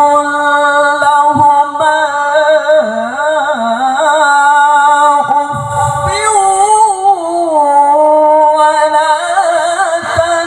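A young qari's voice reciting the Quran in the melodic tilawah style, drawing one phrase out into a long high held note with wavering ornaments. The pitch steps up about six seconds in and settles back lower near the end.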